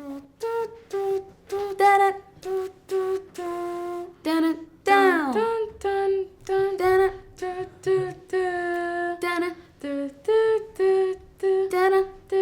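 A single solo melodic line of short, punchy repeated notes, mostly on one or two pitches, with one long note about five seconds in that falls away in a steep downward slide.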